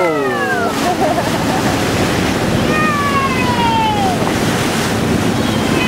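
Rushing bow wash of a ship's hull through the sea, with wind on the microphone. Over it come two high, gliding vocal cries: a short rise-and-fall right at the start, and a longer falling cry about three seconds in.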